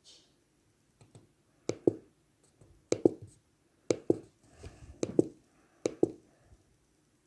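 Clicking at a computer: five pairs of short, sharp clicks about a second apart, the two clicks in each pair in quick succession.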